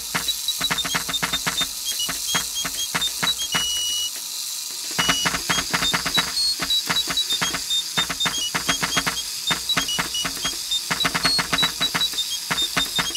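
The clockwork movement of Hans Schlottheim's 1585 ship automaton running: a dense, uneven clatter of metal clicks from its gears, levers and pinned barrel, with short high pings mixed in and a brief lull about four seconds in.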